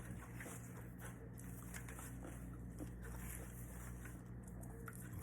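Faint eating sounds: a person chewing, with scattered small clicks and mouth noises over a steady low hum.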